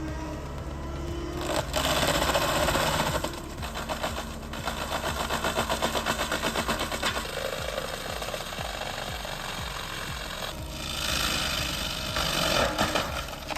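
Chainsaw engine running at high revs with a rapid rattle, its level swelling and dipping as it cuts.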